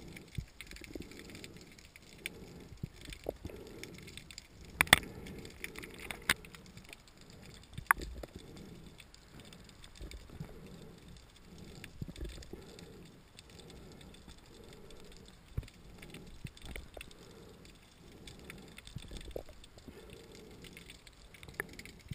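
Underwater sound of a diver swimming, heard through a camera's waterproof housing: a low swish of moving water that swells about once a second, broken by a few sharp clicks and knocks.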